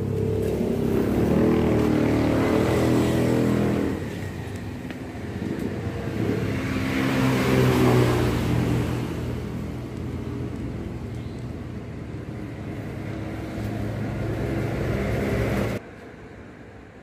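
Motor vehicle engines passing, rising and falling, loudest about eight seconds in. The sound cuts off abruptly a second before the end.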